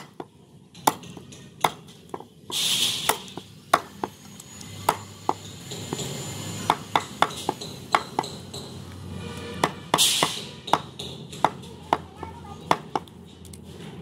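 Meat cleaver chopping goat meat on a wooden log chopping block: sharp, irregular strikes about two a second. A short rush of hissing noise cuts in near three seconds and again around ten seconds.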